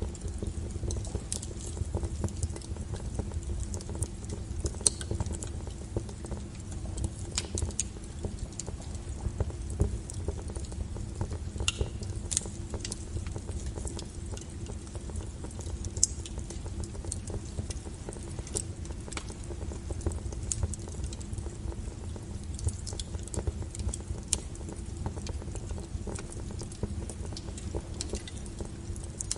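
Wood fire burning, with irregular sharp crackles and pops of the firewood over a low, steady rumble of the flames.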